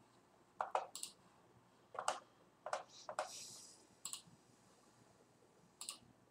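Sparse keyboard clicks, about six, irregularly spaced, with a short rustle just after three seconds in.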